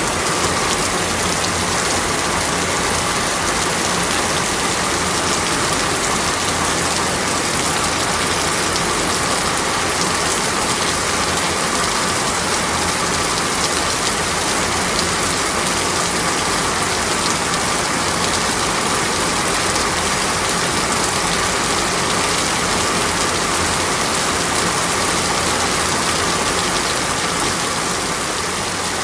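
Steady rain on a window: an even, unbroken hiss of falling water with faint scattered ticks of drops striking the glass.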